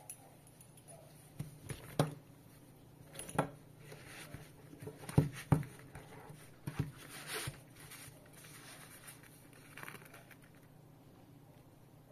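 Handling noise of a fabric waist bag and a strap: scattered taps, clicks and rustles as the strap is pushed through the webbing loop on the back of the bag. The loudest pair of clicks comes about five seconds in.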